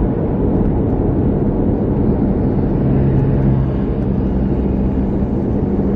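Steady low road rumble of a car driving on a highway, heard from inside the cabin.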